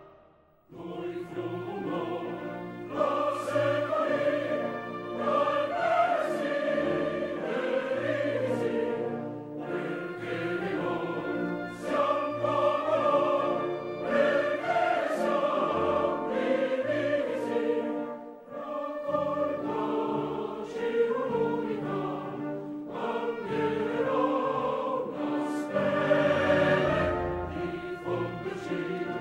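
Choral music with orchestra: a choir singing long, sustained notes, starting after a brief gap at the beginning.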